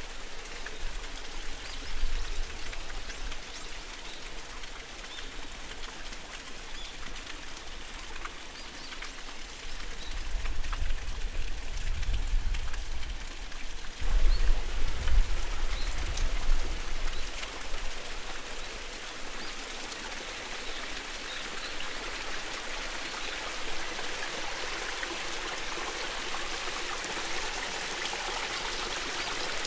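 Steady hiss of water, rain or running water, with a few faint bird chirps. A low, uneven rumble of wind on the microphone comes up around the middle and is the loudest part.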